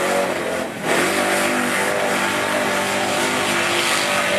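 Mud truck's engine revving hard at high rpm as the truck plows through a mud pit with its tires spinning and throwing mud. The revs dip briefly under a second in, then climb again and hold high.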